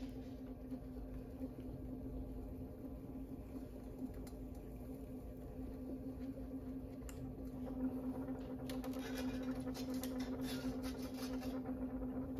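Electric pottery wheel running with a steady hum while hands compress wet clay on the spinning wheel. From about eight seconds in, the wet rubbing of hands on the clay grows louder.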